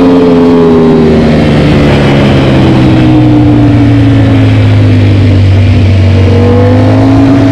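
Ducati Panigale V4's V4 engine running through an Akrapovic GP exhaust while riding. Its pitch eases down over the first few seconds, holds steady, then rises a little near the end.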